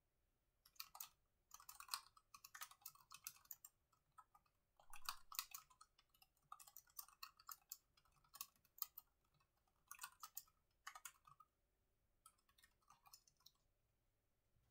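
Faint typing on a laptop keyboard: quick runs of key clicks broken by short pauses, stopping shortly before the end.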